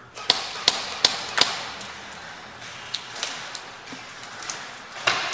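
Airsoft guns firing: four sharp shots in quick succession, about three a second, then scattered fainter shots or BB hits and one more loud crack near the end.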